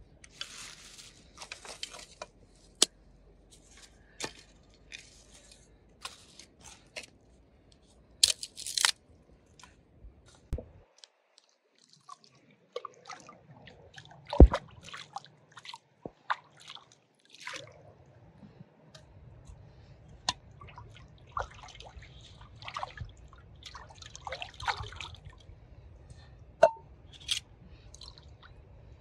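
Dry leaves and twigs crackling and crunching as a hand moves them. After a short break, river water splashes and sloshes as an object is dipped and swished in it, with one loud splash early in that stretch.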